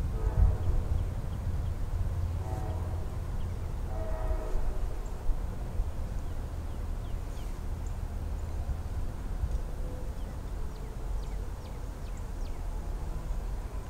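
Distant locomotive horn, a chord of several notes, sounding three blasts in the first five seconds as the train approaches, over a steady low rumble.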